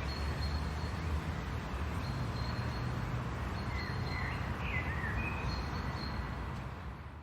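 Suburban outdoor ambience: a steady low rumble of distant traffic under a thin high whistle that comes and goes, with a few short bird chirps a little past the middle. It fades out near the end.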